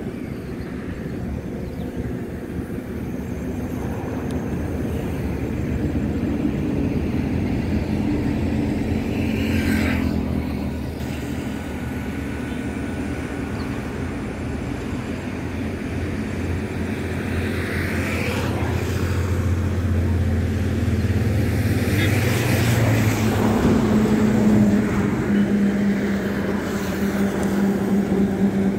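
Motor vehicle engines running and passing by, a continuous low hum that swells several times, loudest a little before the end.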